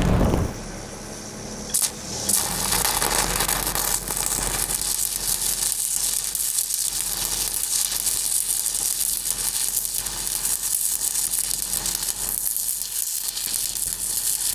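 Stick-welding arc on a downhill pipeline fill pass with a 3/16-inch electrode: the arc strikes about two seconds in, then runs as a steady crackling sizzle.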